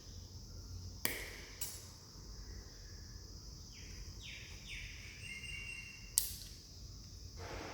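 Steady high-pitched drone of crickets or other insects, with a few short falling chirps near the middle. Three sharp clicks stand out: two about a second in and one near the end.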